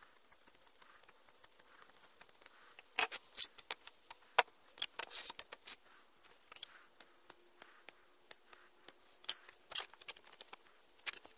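Hand tools and wooden pieces being picked up and set down on a tabletop: sharp clicks and knocks, a cluster about three seconds in and another burst near the end.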